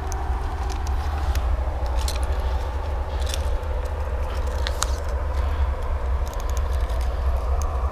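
Steady low rumble on the microphone with scattered small clicks, scrapes and rattles of fishing gear being handled.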